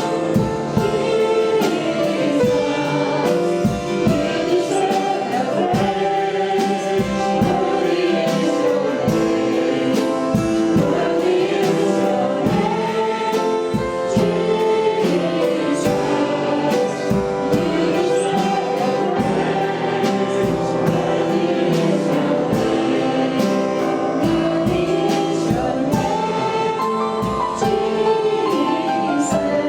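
A gospel worship song sung by a group of voices, with instrumental accompaniment and a steady drum beat.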